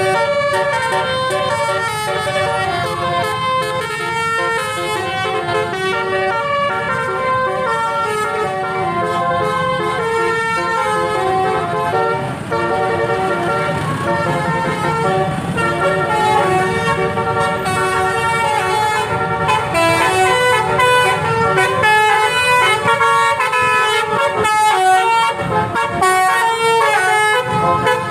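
A bus's basuri telolet horn, a multi-tone musical air horn, playing a long melody of stepping notes without a break, over the low steady sound of the bus's engine.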